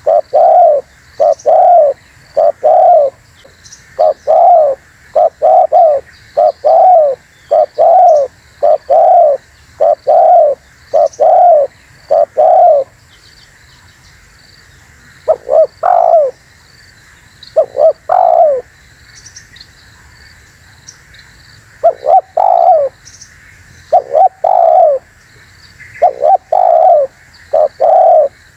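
Spotted dove (terkukur) cooing: loud, rhythmic series of short coo notes in repeated phrases, the bird's typical call, used here as a lure call to draw in wild doves. The cooing stops for a few seconds about halfway through, then resumes. Faint high chirps of small birds sound behind it.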